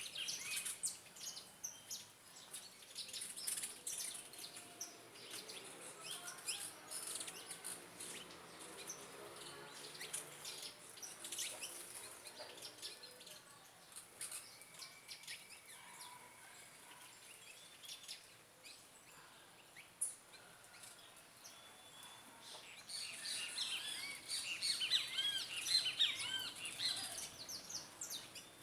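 Several small backyard birds chirping and calling in short, high notes, with a busy flurry of rapid chirps near the end.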